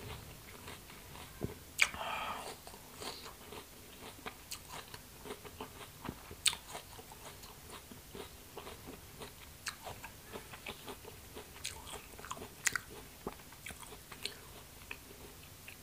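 Close-miked chewing of crisp rose apple (wax apple): irregular wet crunches and mouth clicks, the strongest about two seconds in.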